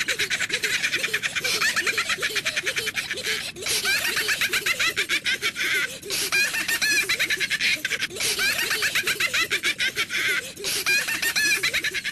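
High-pitched, sped-up cartoon-style voices giggling and chattering in quick repeated syllables, of the kind used for the ZooZoo characters, with a few short breaks. The sound cuts off suddenly at the end.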